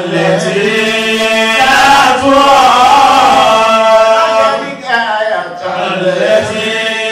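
A man's voice chanting a sermon in a melodic, sung style, holding long notes, with a short break for breath about five seconds in.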